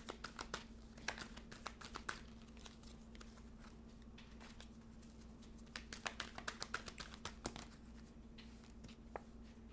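Tarot cards being shuffled and handled: faint runs of quick flicks and clicks in two spells with a lull between them, over a steady low hum.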